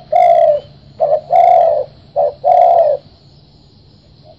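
Spotted dove cooing loudly: three phrases, each a short note followed by a longer one, in about three seconds, then it falls silent.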